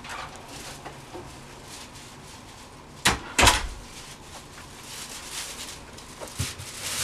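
Wooden room door swinging shut, with two loud knocks close together about three seconds in, amid fainter rustling.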